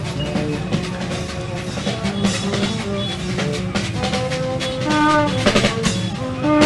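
Music with a drum kit and a steady beat, with melodic pitched notes over it.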